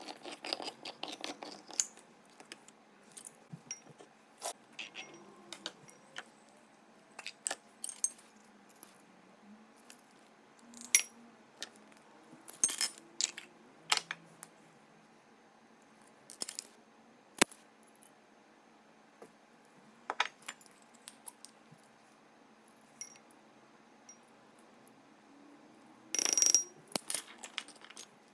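Kitchen clatter from making food: a hand-held can opener working on a metal can at the start, then scattered sharp clinks and knocks at a glass mixing bowl, with one brief louder scrape near the end.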